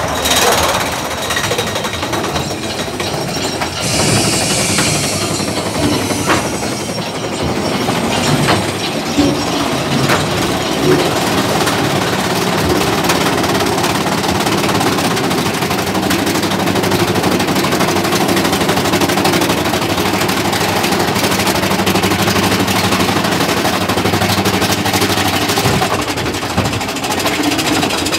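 Big Thunder Mountain Railroad mine-train roller coaster climbing its chain lift hill: a steady, rapid mechanical clatter from the lift chain and track under the moving cars, with a low steady hum through the middle of the climb.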